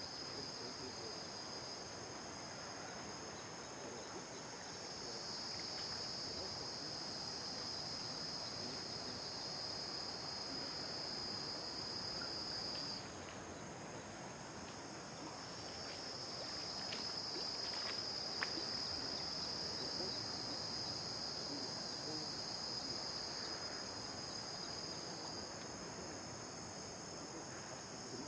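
Chorus of insects trilling: several steady high-pitched buzzing layers, some dropping out and others coming in, over a soft hiss of outdoor background noise.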